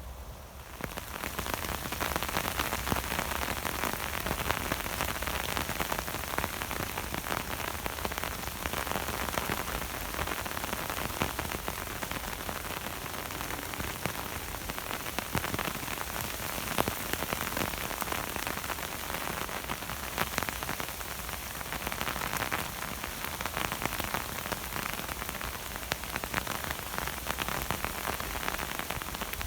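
Steady rain falling, a dense hiss made of countless small drop taps; it starts abruptly about half a second in.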